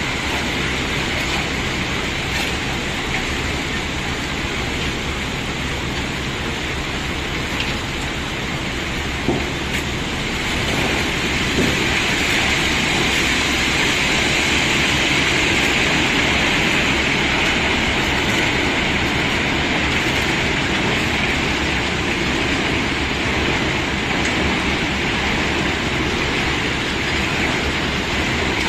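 Cobblestones being unloaded, a continuous dense clatter of stones sliding and knocking together, growing louder about ten seconds in.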